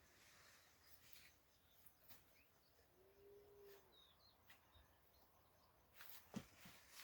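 Near silence: faint outdoor ambience with a few faint bird chirps and soft clicks. A couple of louder clicks come near the end.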